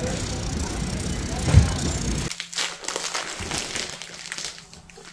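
Loud, even background noise with a single thump about one and a half seconds in. It cuts off, and quieter scattered crinkles and clicks follow as a plastic-wrapped roll of ground beef is handled on a plastic cutting board.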